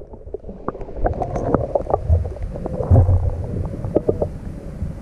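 Action camera in its waterproof housing sinking into a lake: muffled underwater rumble and sloshing, with many short clicks and knocks.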